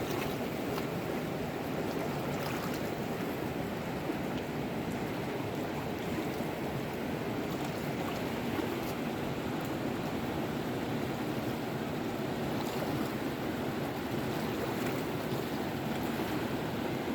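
Steady rushing of flowing water, an even noise that holds level throughout.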